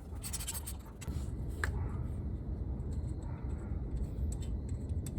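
Hand work on the engine's radiator fan mounting: scattered clicks, rubbing and scraping of metal parts, a quick run of sharp ticks near the start and a short squeak about a second and a half in, over a steady low rumble.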